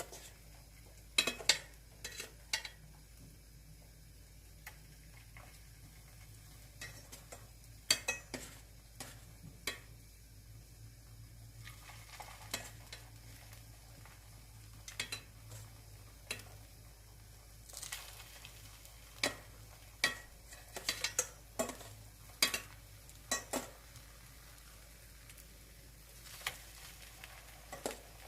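Zucchini pancakes (aehobak-jeon) frying in oil in a pan, a faint steady sizzle, with scattered sharp clicks of a utensil against the pan.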